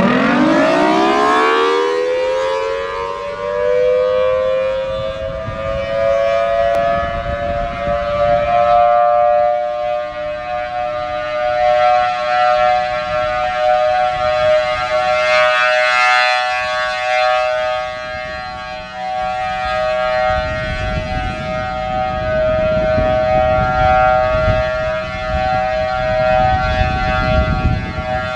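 Federal Signal Thunderbolt 1000T outdoor warning siren sounding the steady Alert signal on a test. It winds up quickly in pitch over the first two seconds, then holds a steady high two-note tone that swells and fades in loudness. Wind buffets the microphone underneath it.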